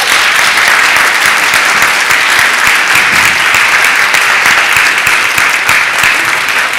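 A congregation applauding: many hands clapping in a dense, steady round of applause.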